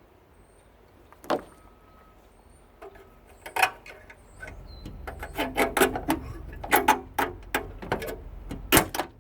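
Metal clicks and knocks as parts are pulled out of a tankless water heater with a hand tool. A few single knocks come first, then from about four seconds in a fast run of knocks, the loudest near the end.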